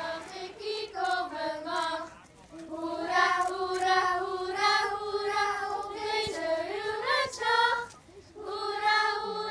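A group of children singing a song together in unison, in long held notes, pausing briefly twice for breath.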